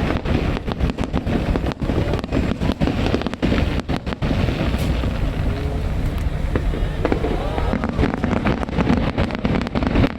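Aerial fireworks bursting: rapid crackling bangs over a low rumble, thinning out midway and picking up again near the end, with voices from the crowd.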